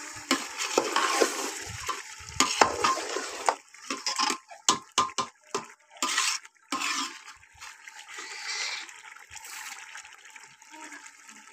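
A metal perforated ladle stirring chicken in wet masala gravy in a metal pot, scraping and clinking against the pot with the gravy squelching. The clinks come thick and fast for the first several seconds, then the stirring goes quieter.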